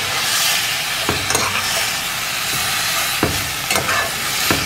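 Chicken pieces sizzling in caramelised sugar in an aluminium pot, stirred with a metal spoon. A steady frying hiss runs throughout, with the spoon scraping and knocking against the pot about half a dozen times.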